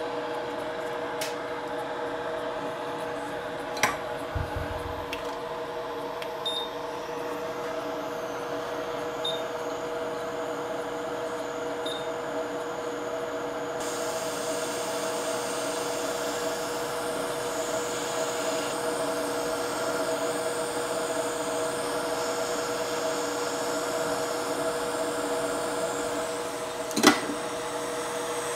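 Steady motor hum of soldering-bench air equipment running continuously, with a sharp click about four seconds in and another near the end.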